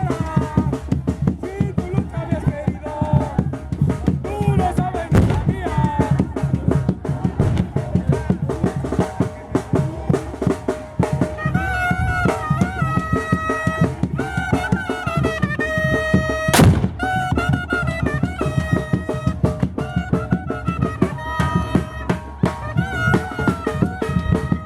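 Chirimía street band playing: a fast, steady drum beat with a held, high wind-instrument melody that grows stronger about halfway through, and one sharp loud hit near the middle.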